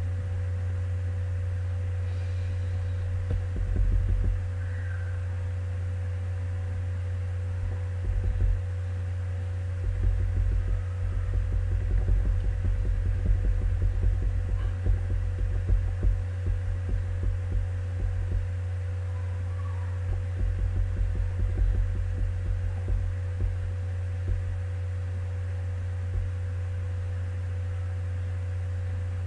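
A steady low hum, with irregular soft low thumps a few seconds in and again in clusters through the middle stretch.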